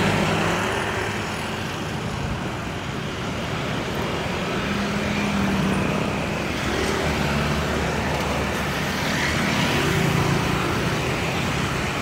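Road traffic: a stream of motor scooters and a small truck passing close by, engines humming over a steady rush of tyre noise, swelling and easing gently as vehicles go past.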